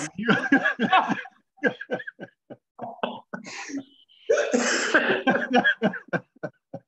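Men laughing hard over a video call, in short breathy bursts that are loudest about four to five seconds in.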